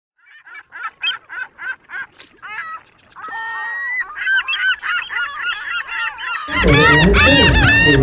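Gulls calling: a run of short repeated laughing calls, then longer, overlapping calls from several birds. About six and a half seconds in, a loud low rumble joins and the calls grow louder and denser.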